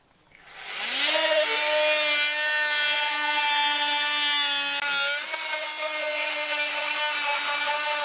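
Oscillating multi-tool starting up about half a second in, its pitch rising briefly, then running as a steady high buzz while its blade plunge-cuts a notch into a chipboard panel.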